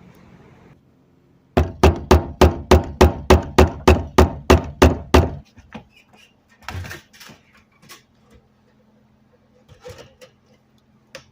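A quick, even run of about fourteen hammer blows, roughly three and a half a second, lasting about four seconds, then a few scattered lighter knocks and clatter.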